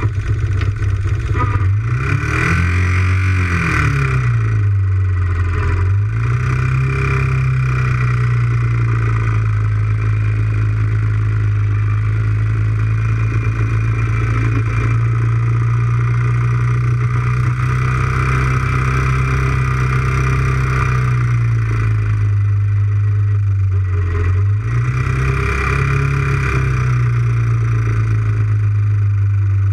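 Quad (ATV) engine running steadily, its pitch rising and dipping briefly a few seconds in and again near the end.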